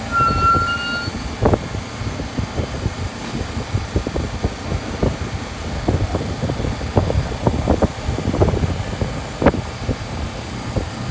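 An R46 subway car standing at the platform, its air-conditioning and onboard equipment running steadily. A short high brake squeal fades out in the first second, and scattered short knocks and thumps come through the steady noise.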